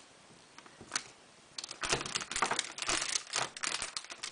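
Kitchen knife slicing through a block of cold-process cake soap with a frosted top, making a dense crackling, crinkling scrape of many small clicks that starts about a second and a half in. A single click comes about a second in.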